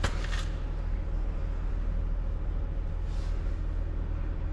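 A steady low hum throughout, with a single sharp click at the very start as a ring spanner is worked on a bolt of a tractor's front wheel hub.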